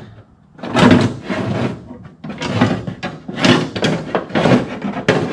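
Worn original wiper linkage of an XW Ford Fairmont being wrestled out through the cowl opening, its metal arms and pivots scraping and rattling against the sheet-metal cowl. The noise comes as a run of irregular scrapes and clunks starting about a second in.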